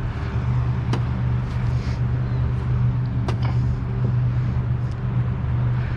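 Two sharp knocks of cornhole bean bags landing, about a second in and again just past three seconds, over a steady low rumble.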